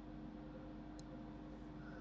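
Quiet room tone with a steady low hum, and one faint click about a second in.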